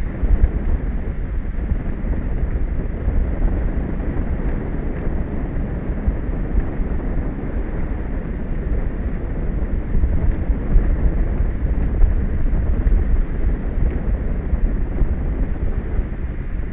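Wind blowing across an exposed microphone: a steady low rumble that swells and dips slightly.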